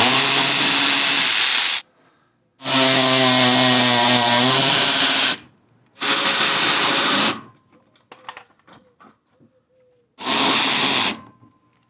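Cordless power tool with a socket spinning out bolts in four bursts, the first two about two to three seconds long and the last two shorter, with light clicks between them.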